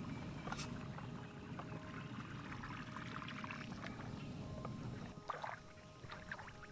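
Water splashing and lapping against a small boat, with a hooked fish splashing and thrashing at the surface near the end.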